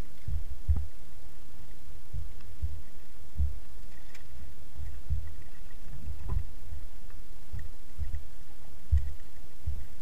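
Wind buffeting the microphone in irregular low thumps over a steady hiss, with a few faint high ticks.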